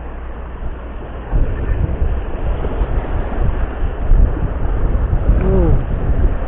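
Waves washing over shoreline rocks, with wind buffeting the microphone as a heavy low rumble that grows louder after about a second. About five seconds in, a short falling tone sounds.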